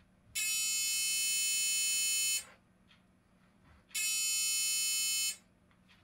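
Electric buzzer wired through a burglar alarm magnetic reed switch sounds twice with a steady buzz, about two seconds and then about a second and a half, starting and stopping abruptly: each buzz is the reed switch being closed by the magnet and completing the circuit.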